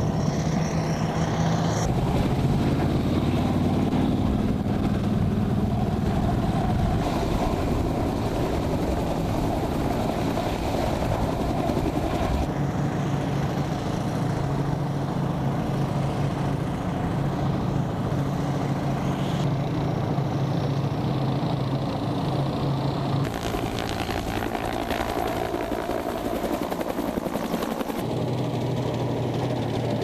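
Steady drone of hovering Cobra attack helicopters and the engines of armoured amphibious vehicles crossing a river. The sound changes abruptly every few seconds as the footage cuts between shots.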